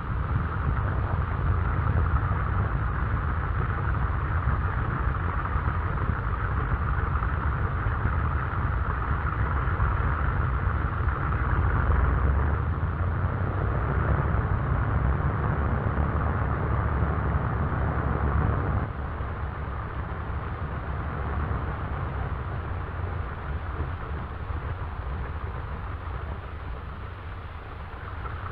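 Radial engines of twin-engine bombers running in a steady, heavy drone on an old film soundtrack with dull, muffled highs, easing off somewhat about two-thirds of the way through.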